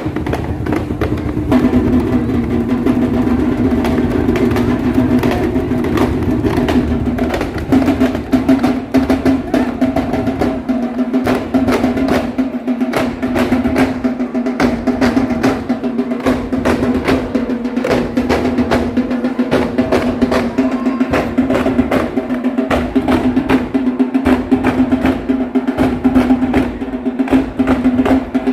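Loud, rapid drumming with many quick strokes, over a steady, held droning tone that shifts down slightly about a second and a half in and breaks briefly near the middle.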